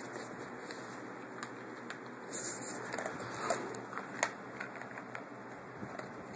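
Dog licking and eating from a disposable food container: scattered small wet clicks and smacks of tongue and muzzle against the container, with a few slightly louder ones about two and a half, three and a half and four seconds in.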